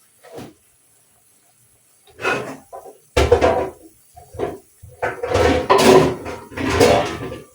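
Kitchen clatter: pots, dishes and a cupboard being handled, in a string of irregular knocks and bangs from about two seconds in.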